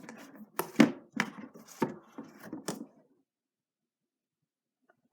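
A quick run of sharp clicks and knocks from a diecast model airliner and its plastic stand and packaging being handled, stopping about three seconds in.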